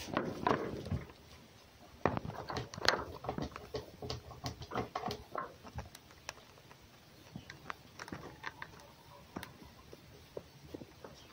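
Red fox moving about in straw and sawdust bedding: rustling, scratching and scattered small clicks and taps. The sounds are busiest in the first half and thin out later, with a bump near the start as the fox jumps down off a wooden box.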